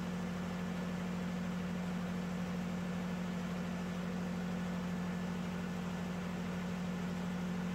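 Steady low machine hum over a constant hiss, unchanging throughout.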